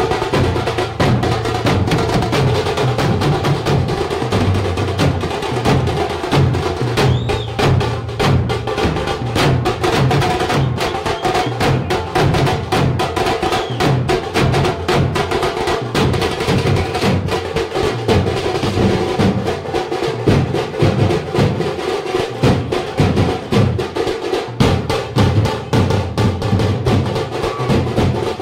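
A group of drummers beating stick-played side drums together in a fast, unbroken rhythm of dense strikes.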